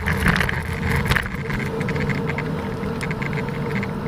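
Bicycle riding off a brick street onto asphalt: the bike and camera rattle over the bricks in the first second, then give way to smoother tyre noise with wind rumble on the microphone. A light regular ticking comes in during the second half.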